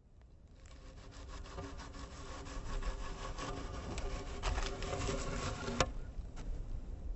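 A rough rubbing, rasping noise, like wood being worked, fading in from silence and growing louder over the first few seconds, with a few sharp clicks in the second half.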